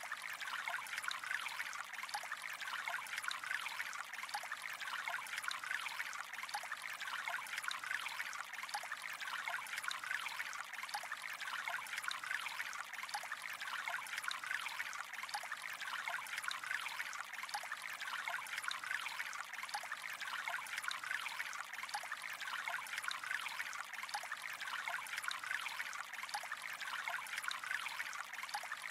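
Gentle trickling water flow, steady and unchanging, with many tiny splashes and drips.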